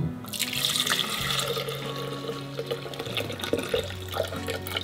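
Chile cooking water and softened guajillo chiles poured from a pot into a glass blender jar, the liquid splashing as it fills the jar. The pouring starts about a quarter second in.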